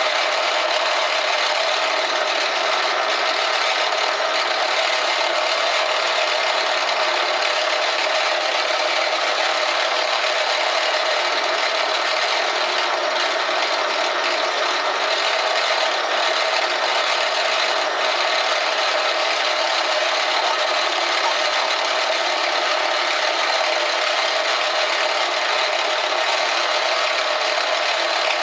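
Metal lathe running steadily while its cutting tool turns a taper on a brass workpiece: an even hiss with faint steady whine tones.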